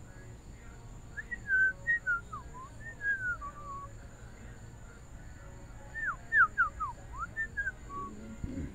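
Clear whistled notes sliding up and down, in two short phrases a few seconds apart, the second made of quick falling slurs.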